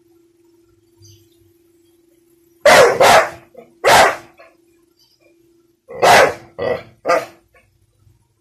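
Young American Bully barking at an open umbrella held toward it: six loud barks in two groups of three, the second group starting about two seconds after the first, the dog's frightened, annoyed reaction to the umbrella. A faint steady hum lies underneath.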